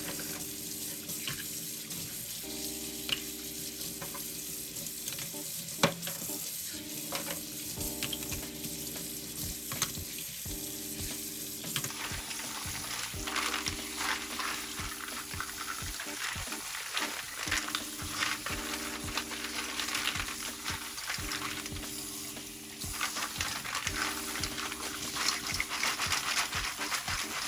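Food sizzling in oil in a frying pan while it is stirred, with scattered clicks of the utensil against the pan. The sizzle grows stronger about halfway through.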